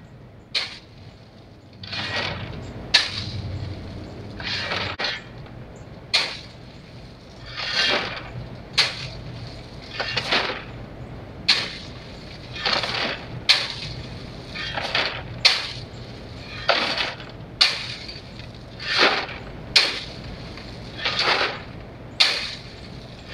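Gravel being shovelled: a rattling scrape of stones, then a sharp clack, repeating about every two seconds.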